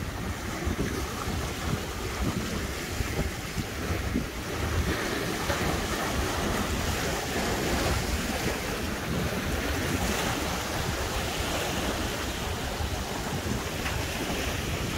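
Sea waves washing and breaking over shoreline rocks, with wind rumbling on the microphone.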